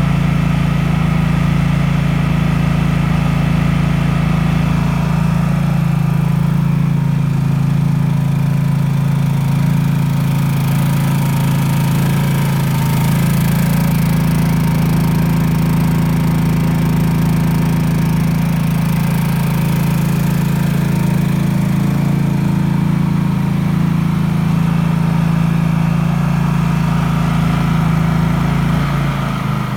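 Baldor PC32Ri 3200 W inverter generator engine running steadily with an even hum. Its note shifts slightly near the end.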